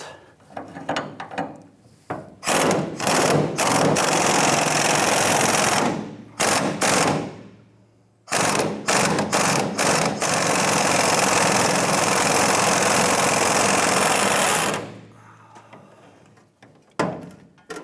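Impact wrench with a 21 mm swivel socket hammering the upper leaf-spring shackle bolt loose. It comes in several short trigger bursts and a run of about two seconds, pauses, then runs steadily for about six seconds as the bolt backs out.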